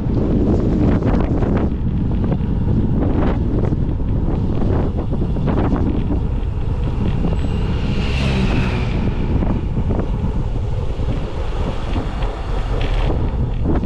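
Wind rushing and buffeting over the microphone of a camera on a moving bicycle, a steady low rumble. About eight seconds in, a brief higher-pitched hiss swells and fades.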